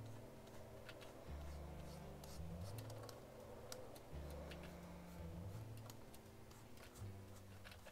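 Scattered light clicks and taps from drawing with a stylus on a pen tablet and from a keyboard, over faint background music with a low, slowly changing bass line.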